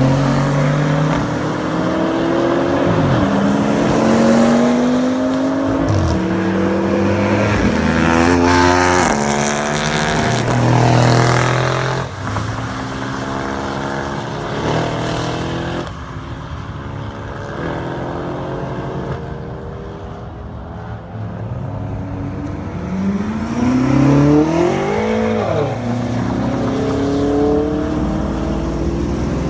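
Sports cars passing one after another on a wet race track, their engines revving up and down through the gears. The traffic thins out for a few seconds past the middle, then another car accelerates hard by.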